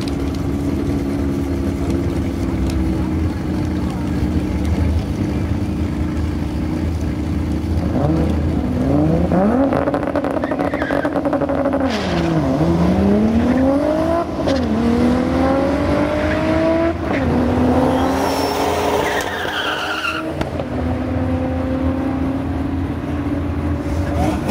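Single-turbo Toyota Supra MKIV with a 3.4-litre stroker inline-six and a Garrett GTX4294 turbo, making a drag pass. The engine idles steadily in the staging lanes for about eight seconds, then launches and accelerates hard, its pitch climbing and dropping back at each of several gear shifts. A falling high whistle comes before the throttle is lifted near the end.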